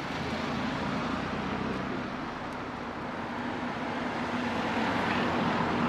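A motor vehicle's engine running with a steady low hum over street noise, growing a little louder toward the end.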